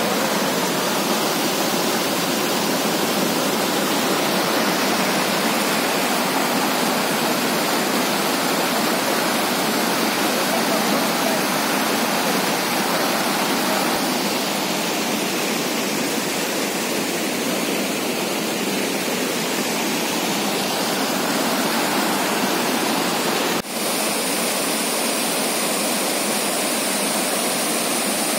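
Floodwater pouring over a weir and rushing through flooded ground: a steady, dense rush of water, broken only by a short dip about three-quarters of the way through.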